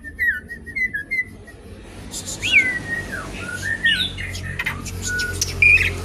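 Asian pied starling singing: a run of short fluting whistles that slide up and down, mixed with harsh squawks and sharp clicks, with the loudest call near the end.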